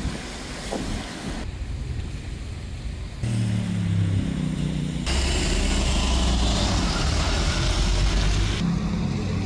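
City traffic sound from several short clips cut together, changing abruptly at each cut: a car passing on a wet street, a vehicle engine running, then a louder stretch of steady rushing noise.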